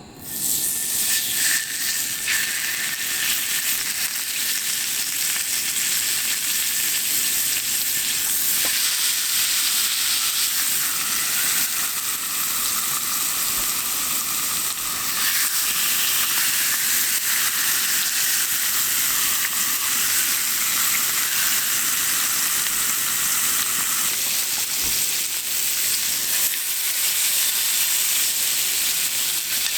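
Food frying in a hot pan, a loud steady sizzle that starts suddenly as it goes in and keeps going.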